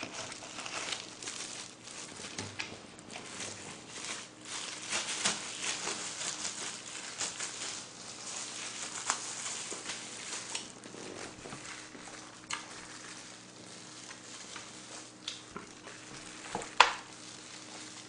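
Thin disposable plastic gloves crinkling and rustling as they are pulled on and pressed over the hands, with many small clicks, thinning out in the second half. Near the end the gloved hands start pulling apart braised pig's trotter (jokbal), with one sharp click.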